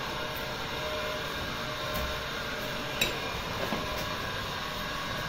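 A steady mechanical hum with hiss, with one sharp click about three seconds in.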